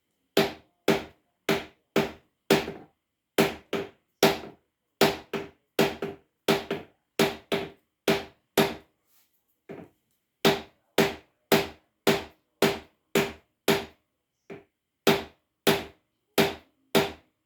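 Steady hammer blows, about two a second, on a piston of a seized 1952 Scott-Atwater 7.5 hp outboard with its head off, driving the piston down to break the seizure and turn the flywheel. Each strike rings briefly, and the pounding pauses about nine seconds in and again near fourteen seconds.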